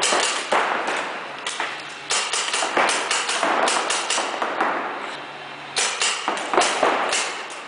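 Paintball markers firing in rapid volleys of quick snapping shots: a burst at the start, a long heavy one from about one and a half seconds to four and a half, and another from about six seconds in.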